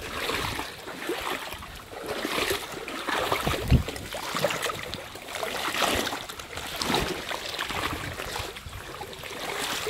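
Water splashing and trickling in irregular swells, with a dull knock about four seconds in.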